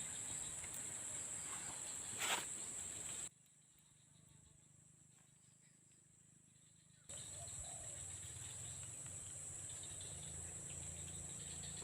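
Steady high-pitched chorus of forest insects, with a short noise about two seconds in. The chorus drops out abruptly for about four seconds in the middle, then returns.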